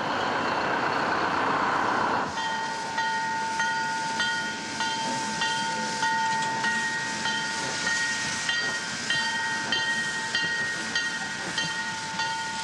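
White Pass steam locomotive running: a steam hiss, then after about two seconds a steady high ringing tone with a regular beat a little under two times a second.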